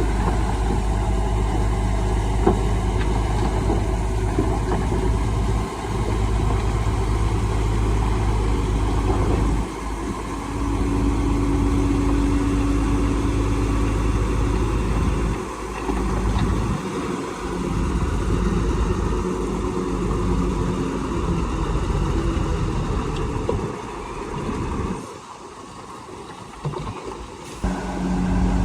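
Heavy diesel engines of a crawler bulldozer and dump trucks running steadily at work. The sound drops away for a couple of seconds near the end, then picks up again.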